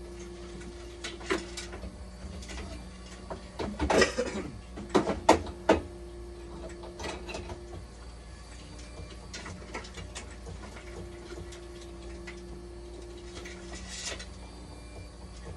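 Clicks and knocks of hands handling the internal hydraulic parts of an opened dialysis machine, with a cluster of sharp knocks about four to six seconds in. Under them runs a steady hum, and a low tone that comes and goes.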